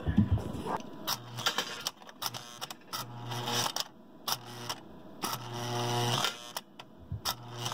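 Vintage model-train operating milk car working under power: its mechanism buzzes several times for about a second at a time, with clicks and clatter as milk cans are pushed out of the car onto the unloading platform.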